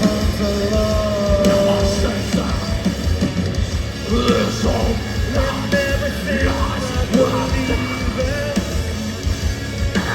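A live heavy metal band playing loud and steady: pounding drums and distorted guitars with a vocal line sung and shouted over them.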